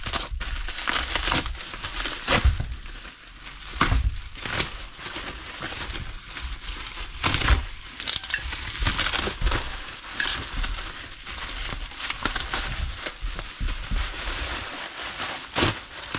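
Bubble wrap being cut open with a box cutter and pulled apart: continuous crinkling and rustling of plastic, with irregular sharp crackles and crunches.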